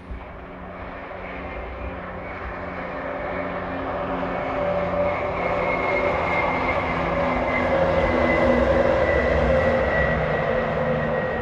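A CrossCountry diesel multiple unit's underfloor engines running under power as it passes. The steady drone carries a high whine and grows louder over about eight seconds.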